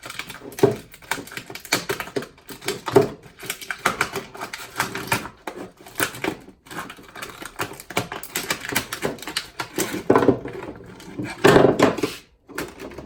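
Rapid, irregular clatter of knocks and scraping as a boxed chisel set is forced open, with a few heavier thumps.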